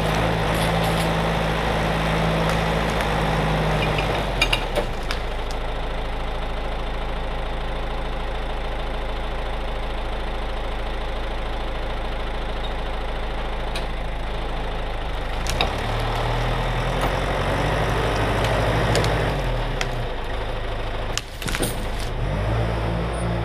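John Deere 540D turbo-diesel skidder engine running. A few sharp knocks come about four seconds in, then the engine note drops. From about halfway through it revs up again as the machine moves off.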